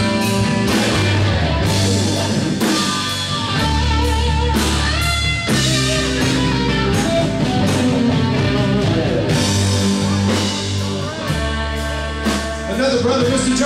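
Live rock band playing: electric guitars and bass guitar over a drum kit keeping a steady beat.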